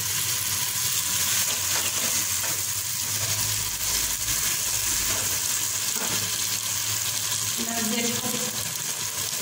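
Eggplant slices and tomato sauce sizzling in a pot while a wooden spatula stirs them: a steady frying hiss with the spatula moving through the food.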